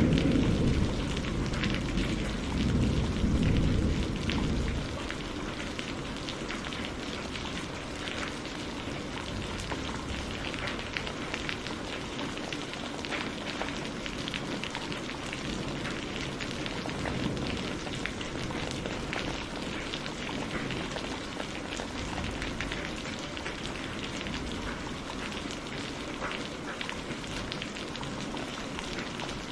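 Steady rain falling on hard surfaces, with many separate drops ticking through the hiss. A low rumble of thunder dies away over the first few seconds.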